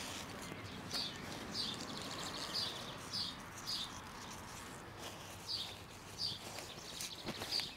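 A songbird chirping, short high notes repeated about every half second with a brief pause midway. Near the end there are a few soft rustles and taps of gloved hands working cuttings into the soil.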